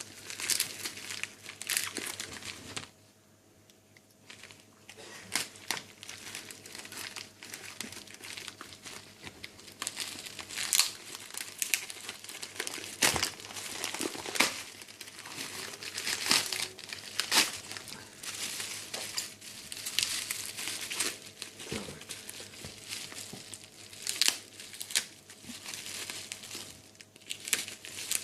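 Parcel packaging being crinkled and torn open by hand, a tightly sealed parcel being worked open: irregular rustles and rips throughout, with a short lull about three seconds in.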